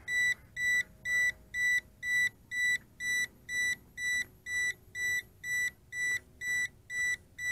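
JXD 506G quadcopter transmitter beeping repeatedly, about three short, high beeps a second, as the camera-tilt button is held to angle the FPV camera up. The camera is already at the top of its tilt range.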